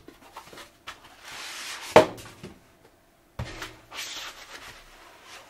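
Cardboard shipping box being opened by hand and its packed contents lifted out: cardboard flaps and packaging rubbing and scraping. There is a sharp knock about two seconds in and a second, duller thump about a second and a half later.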